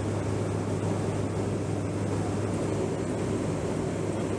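Steady jet aircraft noise in flight: an even rushing sound over a low hum, unchanging throughout.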